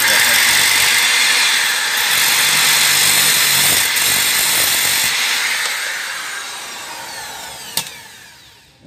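Corded electric drill spinning a small abrasive cut-off disc against a steel nail, grinding loudly for about five seconds. It then winds down with a falling whine as the disc spins to a stop, with one sharp tick near the end.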